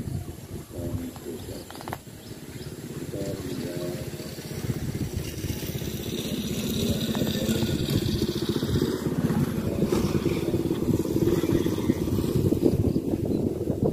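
Motorcycle engine approaching, growing steadily louder and passing close near the end.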